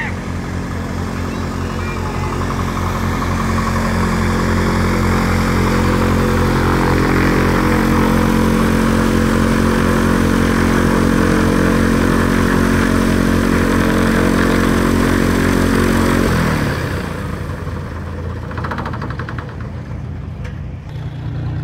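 Cessna 172's piston engine and propeller running as the plane taxis close by, growing louder over the first few seconds. About sixteen seconds in the engine note falls sharply as it is throttled back to a low idle.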